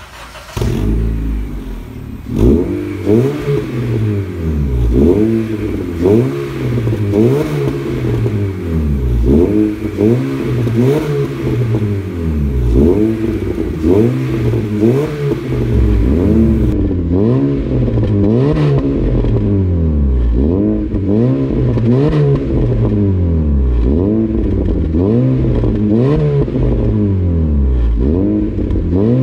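2012 Honda City's four-cylinder engine revved over and over through an aftermarket catback exhaust with three tips, the pitch rising and falling in quick throttle blips a little more than a second apart.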